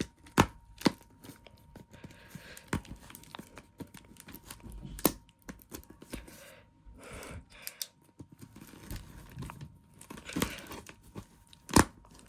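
A pen being jabbed into a package and tearing through its paper wrapping and box, with paper crinkling and rustling between several sharp knocks.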